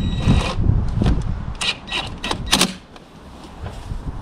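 A quick run of about five sharp clicks about a second and a half in, from a hand tool tightening the negative terminal clamp onto a car battery. Wind rumbles on the microphone throughout.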